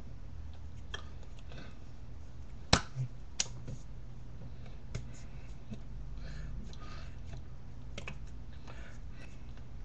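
Hands smacking and brushing against each other while signing in sign language: several sharp smacks, the loudest nearly three seconds in, with soft rustling in between, over a low steady hum.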